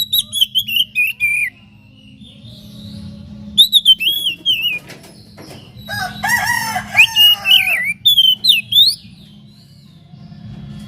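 Oriental magpie-robin singing: loud, short phrases of high, gliding whistles with pauses between them, and a lower, more complex phrase in the middle. A steady low hum runs underneath.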